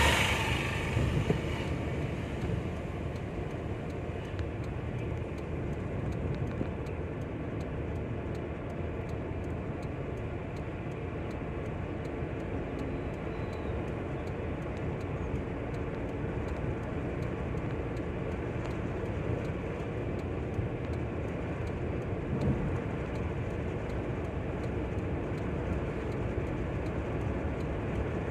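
Steady drone of a car's engine and tyres on the road, heard from inside the cabin while driving, with a short louder rush right at the start.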